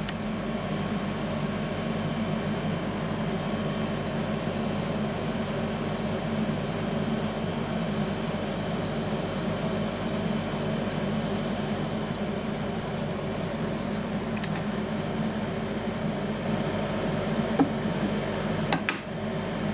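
Steady low hum of a running machine, with a faint click or two near the end.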